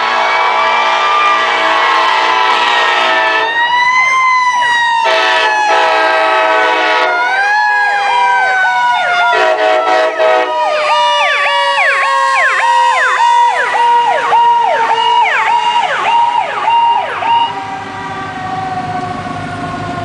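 A fire rescue truck's locomotive-style air horns sound a chord in several long blasts. Under them a mechanical siren winds up and then slowly winds down. From about ten seconds in, an electronic siren yelps rapidly for several seconds.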